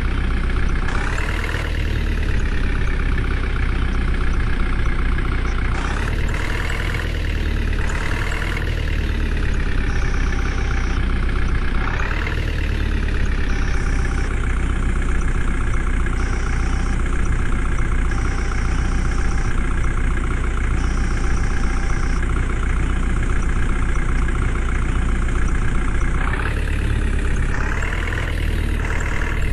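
JCB backhoe loader's diesel engine running steadily, revving up briefly several times as it works, about a second in, around six to nine seconds, at twelve seconds and twice near the end. A high-pitched tone sounds on and off through the middle.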